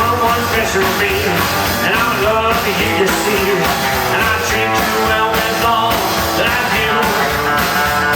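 Rock-and-roll band playing a song, loud and steady.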